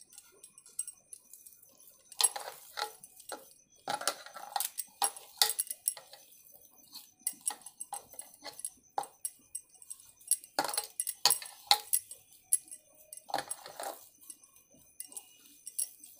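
Stacked bangles on the wrist clinking and jangling in irregular clusters as a hand squeezes and mashes boiled potatoes in a plastic bowl.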